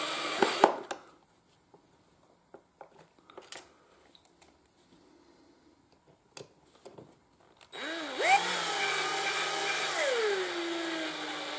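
Cordless drill-driver driving screws into a plastic glove box hinge bracket. The motor runs and stops about a second in, followed by a few small handling clicks. About eight seconds in it spins up again with a rising whine, runs steadily, then slows with falling pitch near the end.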